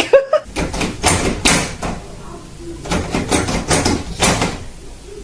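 An uneven series of sharp knocks and clattering bangs, about a dozen over the few seconds, like something banging against a door or cupboard.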